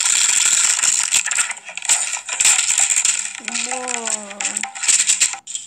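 Paper pages of a flipbook riffled quickly under the thumb, a fast run of papery flicks. About halfway through, a short drawn-out voice sound cuts in, followed by a few more clicks.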